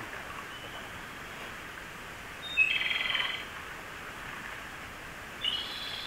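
Japanese robin (komadori) singing. Two song phrases, each a short high opening note run straight into a rapid rattling trill: one about two and a half seconds in, and another beginning near the end.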